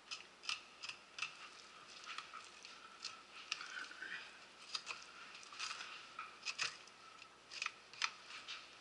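Fillet knife cutting a bluefish fillet off the frame on a wooden cutting board: faint, irregular clicks and scrapes as the blade works along the backbone and ribs.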